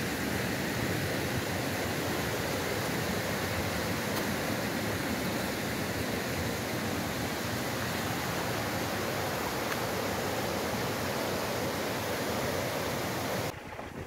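Steady rush of a mountain waterfall and its whitewater stream, cutting off suddenly near the end.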